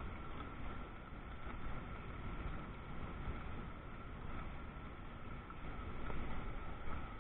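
Steady thunderstorm noise heard from inside a car: an even rushing hiss over a low rumble, with no distinct thunderclap.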